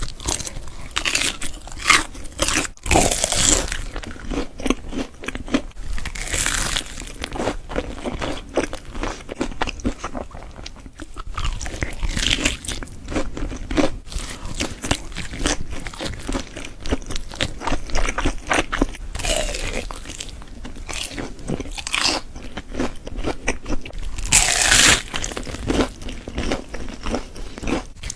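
Close-miked eating: crunchy bites and chewing, with dense crackly clicks and a few louder, longer crunches scattered through.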